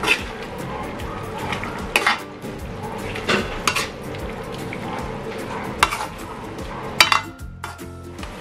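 Metal spatula scraping and knocking against an aluminium wok as chicken pieces are stirred in sizzling curry sauce. There are sharp scrapes every second or two, the loudest near the end.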